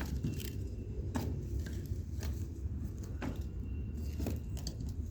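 Small fire crackling faintly: a few scattered clicks and pops, about one a second, over a low steady rumble.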